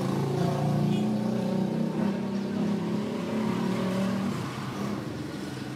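An engine running steadily, dying away near the end.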